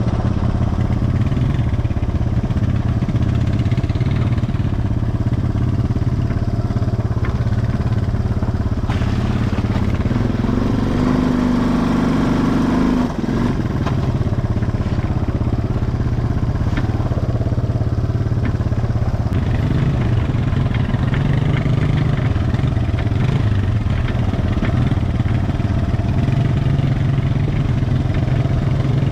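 ATV engine running steadily under way, its note shifting slightly in pitch, with a brief dip in level about 13 seconds in.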